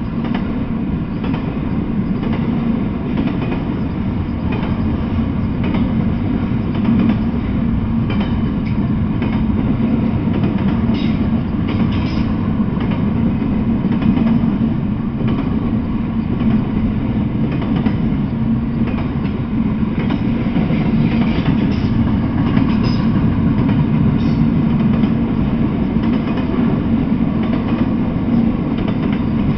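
Intermodal freight train of double-stacked shipping containers on well cars rolling past close by: a steady, even rumble of wheels on rail, with scattered faint clicks and clacks.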